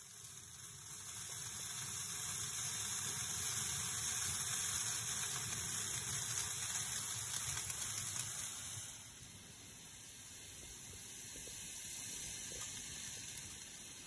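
Steam hissing out of a Crown Bermuda residential steam boiler into its open burner compartment, a leak that shows the no-heat fault is more than a bad thermocouple. The hiss builds over the first couple of seconds, stays loud, then drops to a lower level about nine seconds in.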